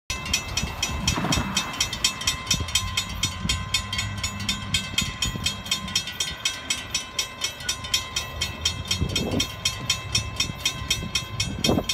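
Railroad grade crossing bell ringing in rapid, even strokes while the crossing gates lower, over a low rumble.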